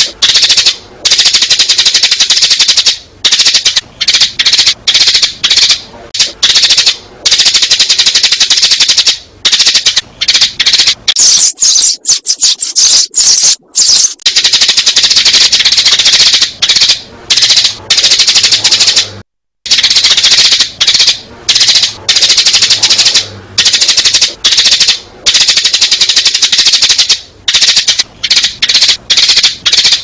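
Sparrows chirping in a loud, rapid, almost unbroken stream of short chirps: a recorded lure call for trapping sparrows. It breaks off for a moment a little after halfway.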